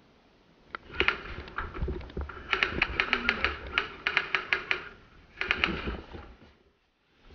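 Airsoft guns firing rapid shots in bursts, sharp clicks coming about five a second, in a bunker's enclosed rooms.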